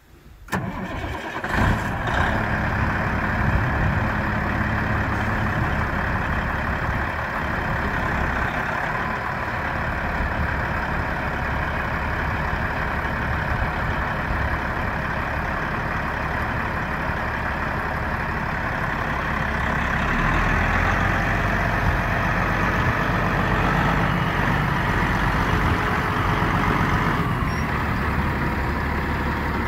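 Heavy diesel engine of a 2000 Peterbilt 379 truck tractor idling steadily. The low rumble grows a little stronger about twenty seconds in.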